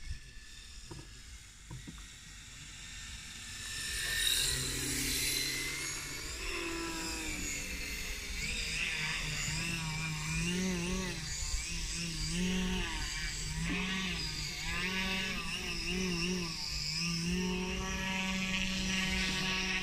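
Quarter-scale RC Piper PA-18 floatplane's geared Hacker A40 electric motor and three-blade propeller droning in flight. It is faint at first and grows loud about four seconds in as the plane passes close overhead. After that the drone keeps rising and falling in pitch.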